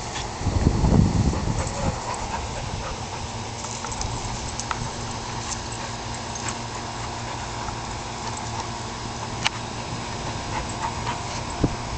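Dogs growling in rough play while tugging over a stick, with the loudest low growl in the first couple of seconds and small clicks and rustles after.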